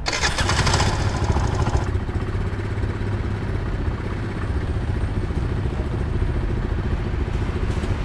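Scooter engine running: a loud rattling burst for the first couple of seconds, then a steady idle.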